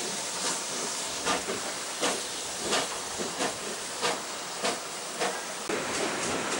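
Steam locomotive working at low speed: slow, regular exhaust chuffs over a steady hiss of steam.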